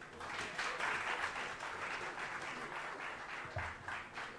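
Audience applauding: many hands clapping in a steady patter that thins out near the end.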